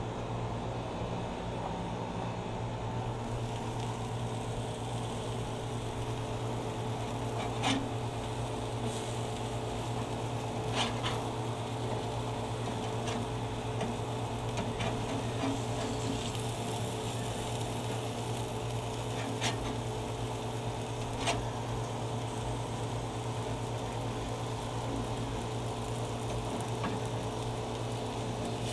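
Burgers sizzling on a grill, over a steady low hum, with a handful of sharp clicks spread through.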